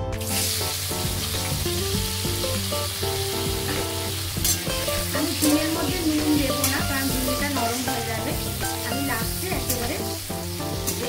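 Ridge gourd pieces tipped into hot oil in a kadai, setting off a loud sizzle all at once, then frying steadily. From about four seconds in, a metal spatula stirs them, scraping and clicking against the pan.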